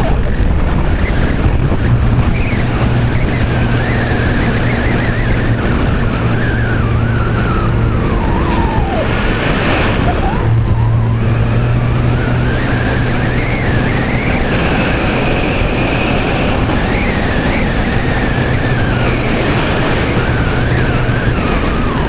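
Electric motor and propeller of an Art-Tech Diamond 2500 radio-controlled glider running, picked up by a camera on the plane, with a steady low hum and a higher whine that wavers in pitch over a rush of wind. About halfway through the whine dips sharply and the hum drops out for a moment, then both come back.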